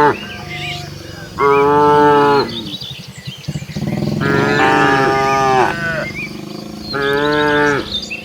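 Cattle mooing: three long, loud moos a couple of seconds apart, from a herd of village cows.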